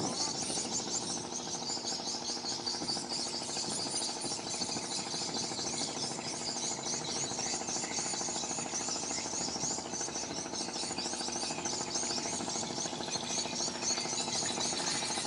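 Steady chorus of insects chirping rapidly and high-pitched, over a lower, steady pulsing drone.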